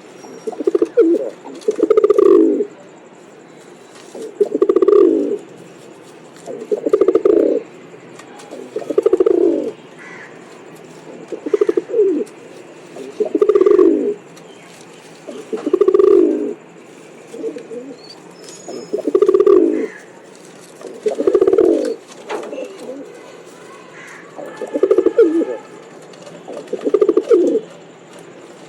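Pigeon cooing over and over, about a dozen low, falling coo phrases, one every two to three seconds.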